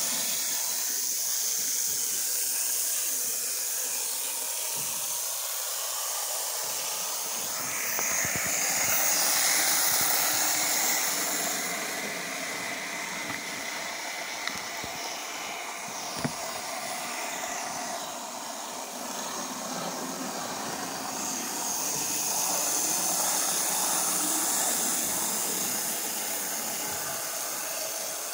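Steady hissing background noise that swells twice, with two faint clicks in the middle.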